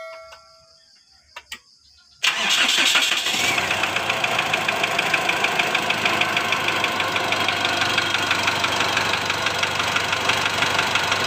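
A 2008 Mitsubishi Strada Triton's four-cylinder diesel engine starts about two seconds in and runs on at idle with a rapid tak-tak-tak knock. The mechanic takes the knock for piston slap in cylinder 1, not a faulty injector.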